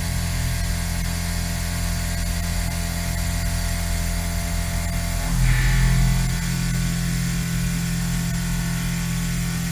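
Exechon XMini machine tool robot surface-milling titanium: a steady machine hum with several constant tones. About five seconds in there is a brief louder surge, after which the low tones shift and the sound settles again.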